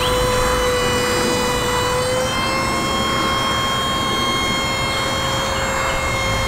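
Hydraulic power system of a truck-mounted aerial work platform whining steadily with a noisy engine rumble beneath, as the boom lifts the bucket; the whine steps slightly up in pitch about two seconds in.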